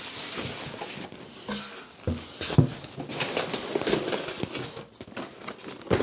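Rummaging in a large cardboard shipping box: cardboard rustling and scraping, with a few knocks as boxed sets are moved and lifted out.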